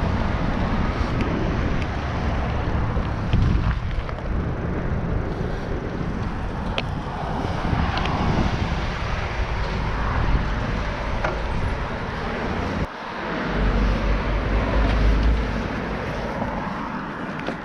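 Riding noise from an NCM Aspen fat-tyre e-bike in motion: wind rushing over the microphone and tyres rolling over rough ground, with scattered clicks and rattles. A heavier low rumble of wind swells about two-thirds of the way through.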